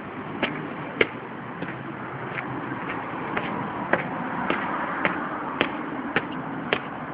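Footsteps of hard-soled shoes on concrete steps and paving, sharp regular steps about two a second. Behind them a steady hum of road traffic grows louder towards the end.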